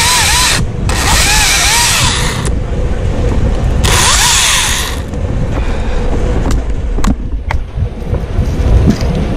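Husqvarna top-handle chainsaw revving in two short bursts, cutting loblolly pine, its whine wavering in pitch under load. Then it goes quieter, with a few sharp clicks and knocks.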